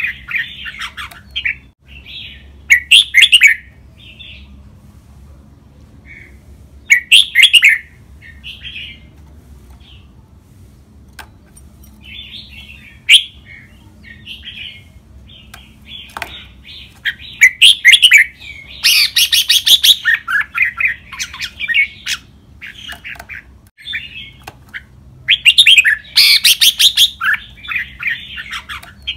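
Caged red-whiskered bulbul singing: several loud bursts of song a few seconds apart, with quieter chirping phrases between.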